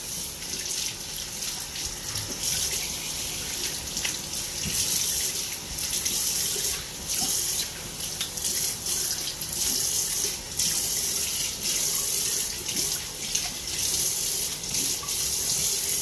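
Tap water running into a sink as the face is rinsed off after a razor shave. The stream is a steady hiss that keeps breaking and swelling with splashing.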